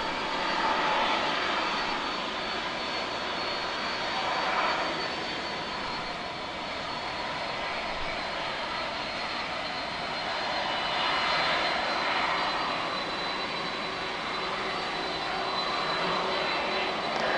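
Airliner jet engines running: a steady rush with a thin high whine, swelling and easing a few times.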